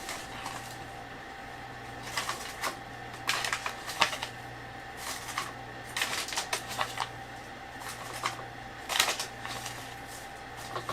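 A spoon scooping ground coffee and tapping against its containers, heard as irregular light clicks and scrapes in small clusters, over a steady faint hum.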